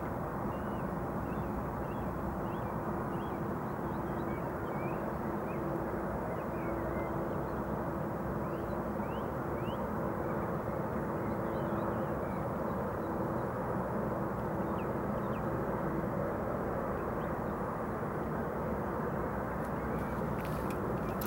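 Outdoor ambience: a steady low drone of a distant engine with a held hum that fades out about three-quarters of the way through, and faint scattered bird chirps above it.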